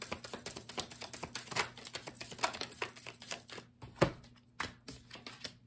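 A deck of tarot cards being shuffled by hand: a fast run of light card flicks and slaps, then a card laid down on a wooden table with a sharper tap about four seconds in.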